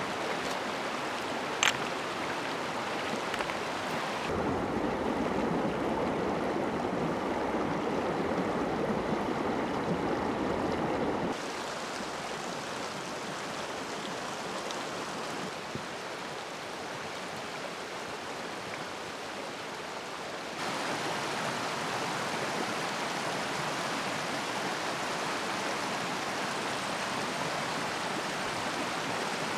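A rushing stream, a steady wash of running water. Its tone and loudness change abruptly three times: it is fuller and louder from about 4 to 11 seconds in, thinner until about 21 seconds, then brighter again. A single sharp click comes about two seconds in.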